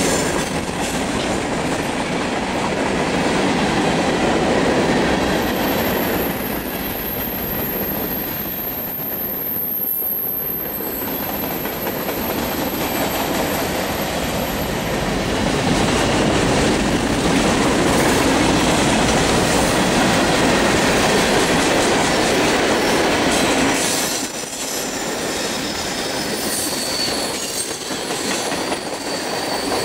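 Loaded freight cars of a long train rolling past close by: steel wheels rumbling and clattering on the rails in a steady, loud stream, with a thin high-pitched wheel squeal during the first half.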